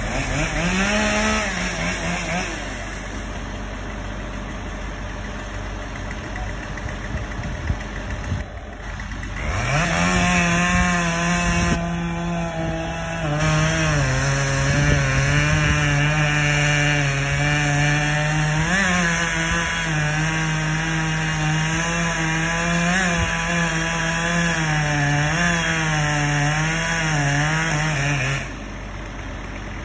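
Chainsaw cutting wood. It revs briefly near the start, then runs for about twenty seconds from around ten seconds in, its engine speed dipping and recovering repeatedly under load.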